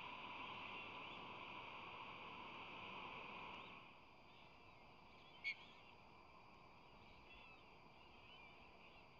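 Faint high peeping of a days-old osprey chick begging, over steady camera hiss that drops away about four seconds in. A single short sharp chirp about five and a half seconds in is the loudest sound.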